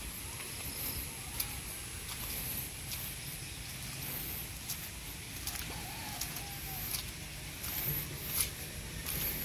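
Rural outdoor ambience: a steady high-pitched hiss over a low rumble, with scattered short clicks and a faint bird call about six seconds in.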